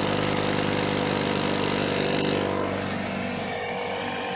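Portable electric air compressor running steadily while pumping up a flat tyre, a loud even motor hum that eases slightly a little past halfway.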